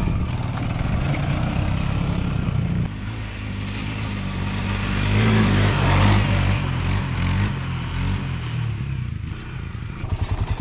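Honda TRX300EX quad's single-cylinder four-stroke engine running and revving under throttle, loudest about halfway through. Near the end it settles into a slow, even putter at idle.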